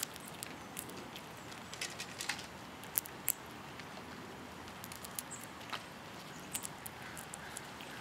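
Gray squirrel feeding on sunflower seeds close to the microphone: irregular light clicks and crackles of seeds and shells being handled and shifted, over a steady faint hiss. Two sharper clicks stand out about three seconds in.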